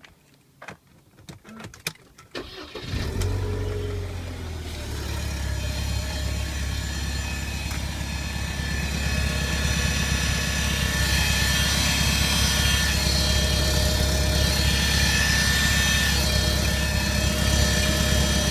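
A car engine cold-started in the morning. A few clicks come first, then the engine catches about three seconds in and runs with a loud noise. The noise grows louder and carries a steady high-pitched whine. The owner says this noise appears only on the morning start and lasts about 30 seconds before the engine sounds normal.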